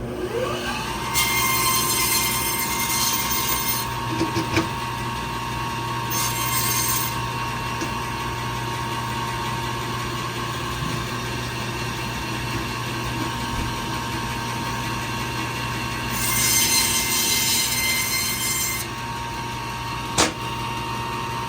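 Fish-cutting band saw running with a steady whine and hum. Its blade cuts through a whole fish (a katla carp) three times, each cut a harsh hiss lasting one to three seconds. There is a sharp knock near the end.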